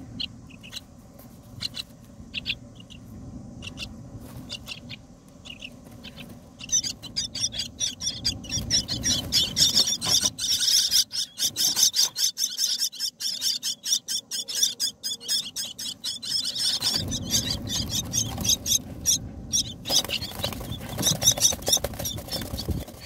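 Common myna nestlings calling, a few short high chirps at first, then from about seven seconds in a dense, rapid chorus of shrill begging calls that runs on almost to the end.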